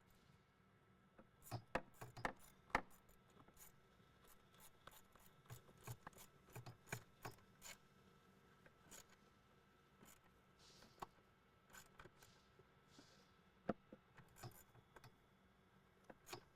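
Faint, irregular clicks and light knocks of a hand tool and intake parts being handled while the hose clamps on the intake tube are tightened.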